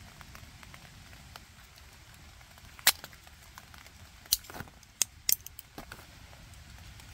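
Sharp metallic clicks from camp coffee gear being handled: a stainless dripper set aside and a folding spoon snapped open and locked. Four loud clicks come between about three and five and a half seconds in, with a few softer taps, over light rain patter.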